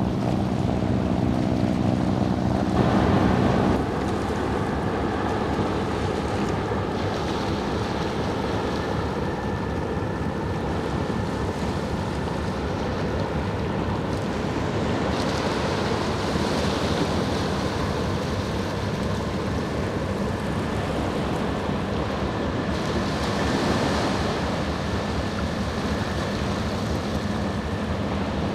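Small waves washing on the shore and wind on the microphone. Under them runs a steady low engine drone, louder for the first few seconds and dropping away sharply about four seconds in.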